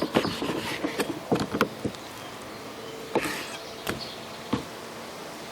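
A knife cutting through a cold beef strip loin, with a run of short clicks and knocks of the blade and meat against the cutting board in the first two seconds, then a few scattered knocks.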